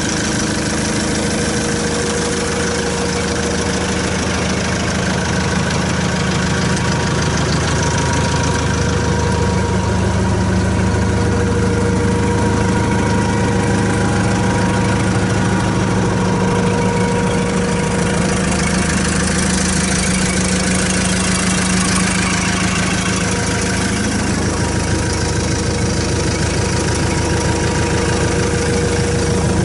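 Kubota M108S tractor's diesel engine idling steadily.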